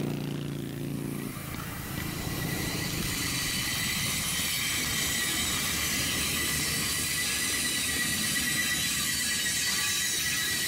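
Battery-electric SD40JR switching locomotive rolling past at low speed. It has no diesel engine note, only wheel-on-rail noise with a steady thin high-pitched whine, growing louder from about two seconds in as it draws alongside.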